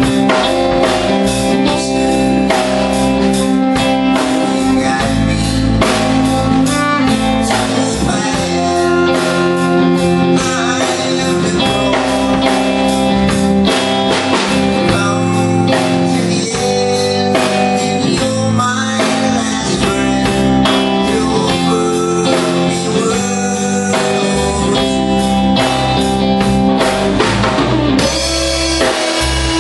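Live band playing a bluesy rock song: electric guitars and a drum kit keep a steady beat, with saxophone and a singing voice at times.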